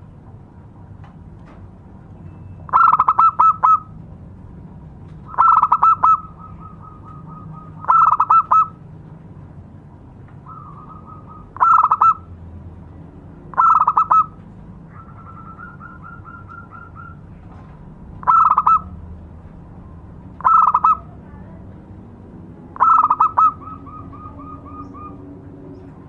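Zebra dove (perkutut) cooing: eight loud short bursts of rapid coos a few seconds apart, several trailing off into a softer quick trill of repeated notes.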